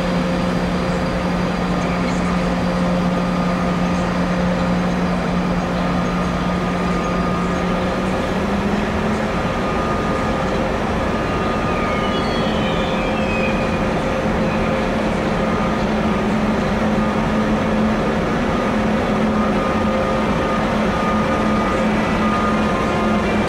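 Siemens Taurus electric locomotive moving slowly, its traction equipment giving a steady electric hum. The hum steps up slightly in pitch about eight seconds in, over a constant rushing noise.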